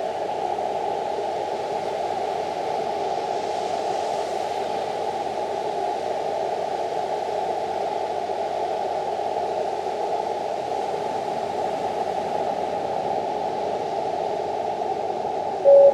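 Elecraft KX2 ham radio transceiver receiving on a quiet Morse code (CW) frequency: steady hiss of band noise through a narrow CW filter. A Morse code tone starts right at the end.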